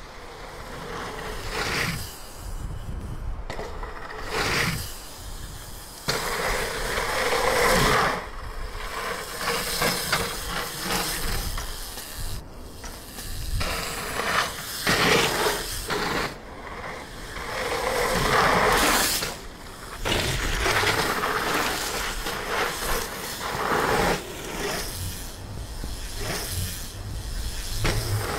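Mountain bike tyres rolling and skidding on loose dirt, in gritty swells of noise that come and go every few seconds as the bike is ridden through berms and over jumps.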